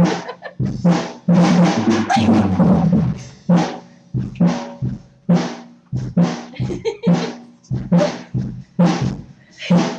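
Drum kit being played loudly: a beat of kick, snare and tom hits about every second, each leaving a low ring, with a busier fill about one to three seconds in.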